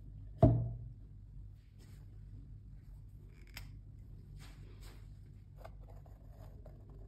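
A stretched canvas set down on a tabletop: one loud thump with a short low ring about half a second in. After it come faint clicks and light handling noise as a marker is picked up.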